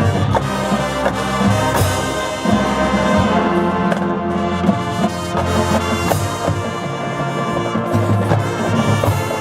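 High school marching band playing its field show: full brass sections with drumline, and two cymbal crashes, about two seconds in and about six seconds in.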